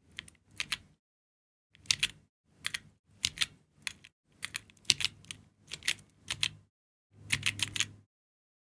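Georgi stenographic keyboard being chorded: about a dozen steno strokes, each a quick clatter of several keys, struck at roughly two a second with a short pause about a second in.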